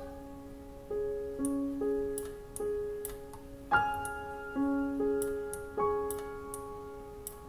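Background piano music: single notes and chords struck every half second to a second and left to ring, with faint high ticks among them.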